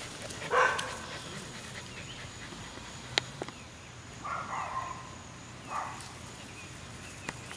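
Rottweiler puppy giving a few short barks: the loudest about half a second in, then two more around four and a half and six seconds. A single sharp click just after three seconds.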